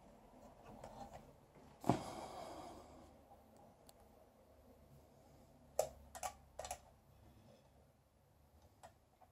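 Quiet room tone broken by handling noise: one sharp knock about two seconds in, then three quick clicks close together around six seconds in, and a faint click near the end.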